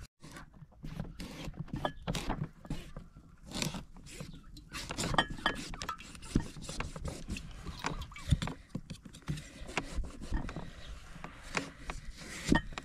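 Kitchen knife sawing through the hard rind of a large pumpkin: an irregular run of short cracking and scraping strokes, a few louder than the rest. Domestic geese call now and then.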